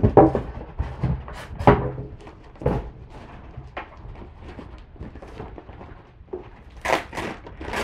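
Foam packing inserts and a cardboard box being handled: a few dull knocks and thumps in the first three seconds, then plastic bag wrapping crinkling near the end.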